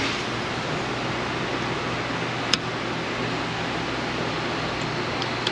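Steady fan-like rushing noise with a low hum underneath, broken by a single sharp click about two and a half seconds in.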